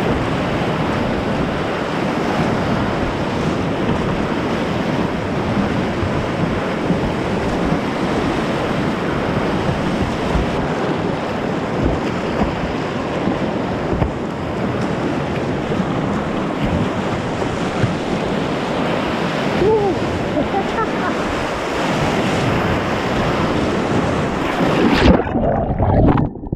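Steady loud rush of whitewater rapids churning around a kayak, heard close from a camera on the boat. Near the end the sound turns muffled and drops as the camera is buried in the foaming water.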